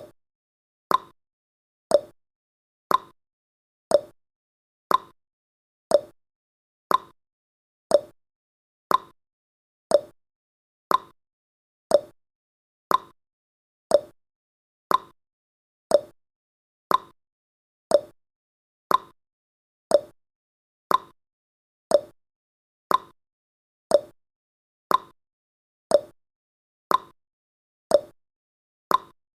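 Clock tick-tock sound effect, one sharp tick each second, alternating between a higher and a lower click, with silence between ticks.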